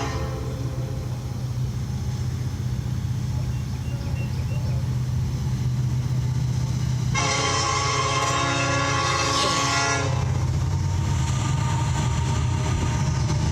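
Norfolk Southern locomotive air horn sounding a chord of several tones: a blast cuts off about half a second in, then one long blast of about three seconds starts about seven seconds in. A steady low rumble from the passing train runs underneath.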